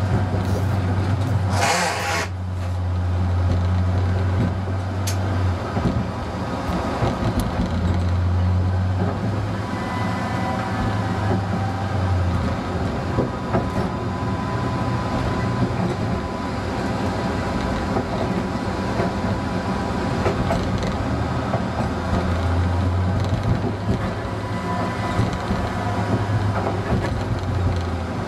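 Cab sound of a ČD class 854 diesel railcar on the move, its diesel engine giving a low drone that swells and fades several times, with wheels clicking over the station pointwork. A short hiss about two seconds in.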